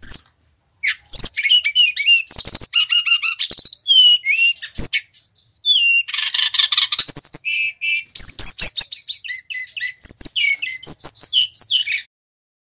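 Male brown-chested jungle flycatcher singing a long, varied song of whistled glides, rapid trills and buzzy notes with short pauses, stopping shortly before the end.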